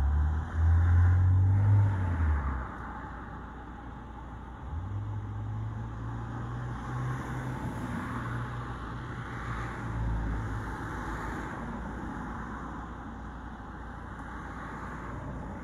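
Motor vehicles going by on a road: a low engine hum, loudest in the first two seconds, then returning from about five seconds in, with tyre noise that swells and fades.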